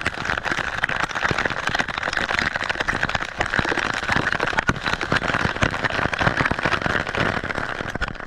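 Hail pelting the sea surface: a dense, steady crackle of countless small splashes and ticks.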